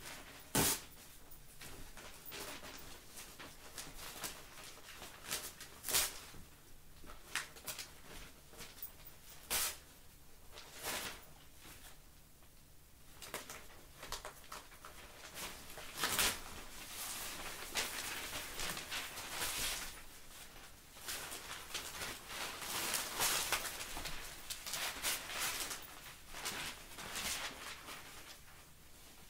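Newspaper rustling and crinkling as a corgi puppy bites, tugs and tears at the pages, with separate sharp crackles at first and a denser, more continuous rustle through the second half.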